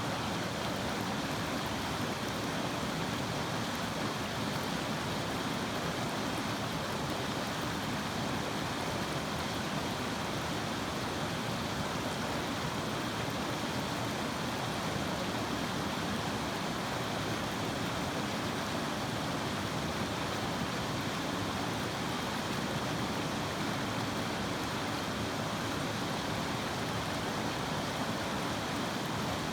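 Cape Fear River water flowing: a steady, even rush of moving water.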